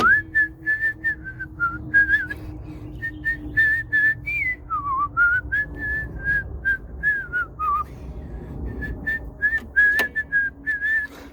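A person whistling a tune in short, wavering notes, with frequent sharp clicks and taps alongside and one louder click about ten seconds in.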